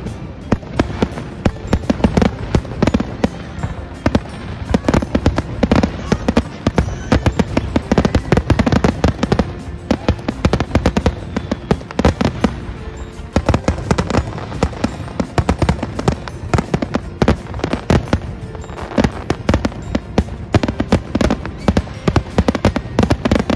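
Aerial fireworks finale: shells bursting in a rapid, unbroken barrage of bangs and crackles, many a second, like an automatic gun.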